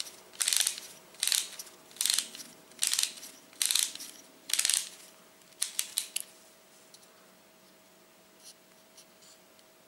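Wooden parts of a UGEARS VM-02 plywood motorbike model being worked by hand: a run of about six short noisy strokes less than a second apart, then a few sharp clicks and faint ticks.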